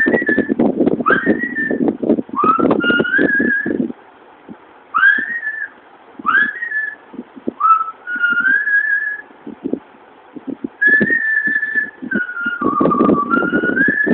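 Human mouth-whistling of a melody, in short phrases of rising swoops and held notes with brief gaps between them. A rough low rustle sounds under the louder passages.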